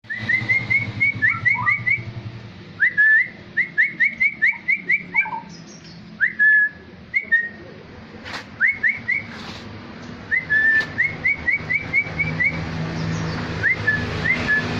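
Straw-headed bulbul (cucak rawa) singing: phrases of quick, rising whistled notes, several a second, broken by short pauses.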